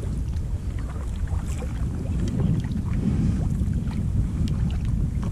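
Steady wind noise on a kayak-mounted camera's microphone, with small scattered splashes and drips from a kayak paddle stroking through calm water.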